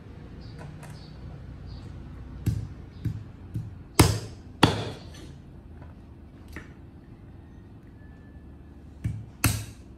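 Meat cleaver chopping raw meat on a round wooden chopping board: a handful of sharp, irregular chops, loudest about four and four and a half seconds in, then a lighter one and two more near the end.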